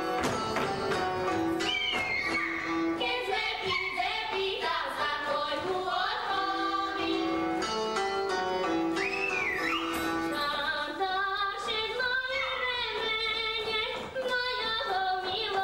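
Live Slovak folk music from a small stage band, with voices, mostly women's, singing along.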